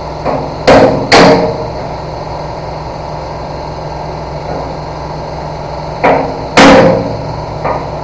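Hammer striking a steel chisel to knock plasma-split nuts off the bolts of a skid steer bucket's cutting edge: sharp ringing metal clanks, two hard blows about a second in and two more near the six-to-seven-second mark, with a few lighter taps between.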